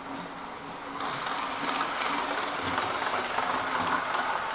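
Model train running on the layout's track: a steady rolling whir from its small electric motor and wheels on the rails, which grows louder about a second in.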